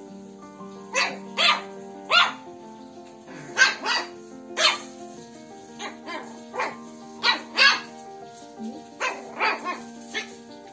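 Shih Tzu barking in short barks, about fifteen in all and often in pairs or threes, over background music with held notes.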